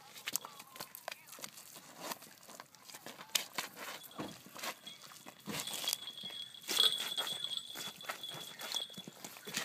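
Catfish flopping and thrashing on wet pavement: a run of irregular slaps and scrapes, the loudest about seven seconds in. A thin, steady high-pitched tone comes and goes behind it.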